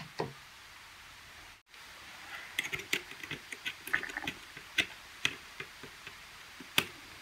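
Scattered light clicks and taps from hands handling an opened power bank and a small screwdriver at its circuit board, with a few sharper clicks in the second half.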